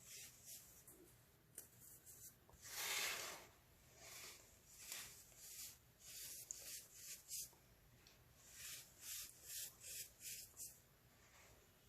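Faint crunching of compressed baking soda being crushed: scattered crunches, one longer crunch about three seconds in, and a quick run of short crunches near the end.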